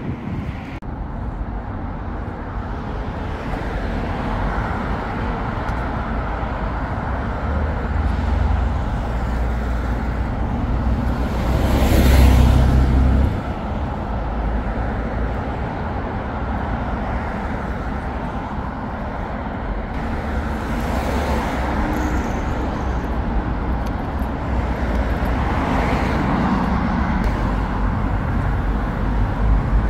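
City street traffic: a steady rumble of cars running past, with one vehicle passing close and loud about twelve seconds in.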